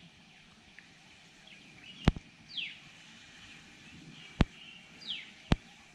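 Three sharp clicks a second or two apart from the spinning rod and reel being handled while a small lure is worked back. Twice a bird gives a short falling chirp.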